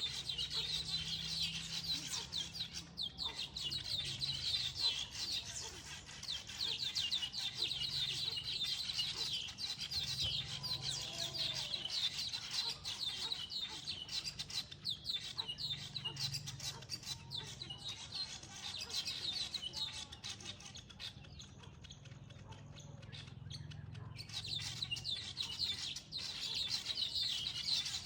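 A flock of small birds at their nests, chattering and twittering in a dense, continuous chorus. It thins out for a few seconds about three quarters of the way through, then picks up again.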